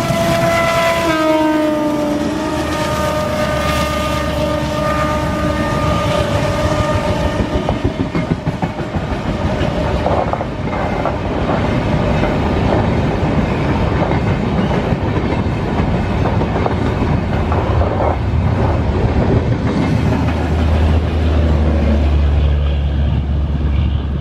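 ALCO WDM-3D diesel locomotive passing with its turbocharger whistling: a loud high-pitched whistle of several steady tones that drops in pitch about a second in and fades over the next several seconds. The coaches then rattle and clatter past over the rail joints, with a low rumble near the end.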